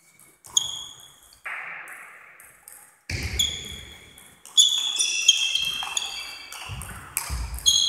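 Table tennis ball being hit back and forth in a fast rally: a quick series of sharp clicks off the bats and table, each with a short high ring. Several heavy low thuds come about 3 seconds in and again near the end.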